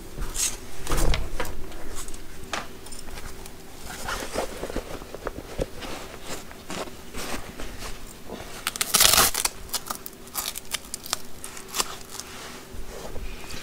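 Thick leather welding gloves being handled and pulled on: irregular scuffing and rubbing of stiff leather with small knocks, and a louder rustle lasting about a second around nine seconds in.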